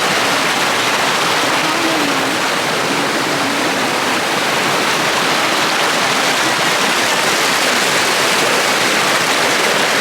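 Steady rush of water from a small waterfall, a loud, even roar of falling and running water.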